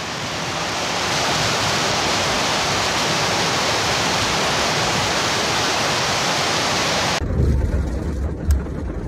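Heavy rain falling in a dense, steady hiss that cuts off sharply about seven seconds in. A low rumble follows, with a single sharp click near the end.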